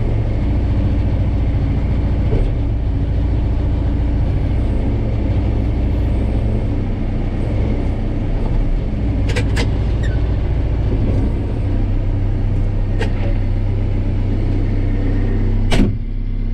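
Diesel engine of a backhoe loader or mini excavator running steadily, with a few sharp clicks or knocks about halfway through and a louder one near the end.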